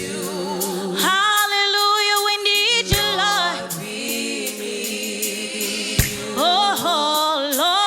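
Gospel praise-and-worship music: a youth praise team singing sustained notes with vibrato over band accompaniment, with sharp drum hits about three and six seconds in.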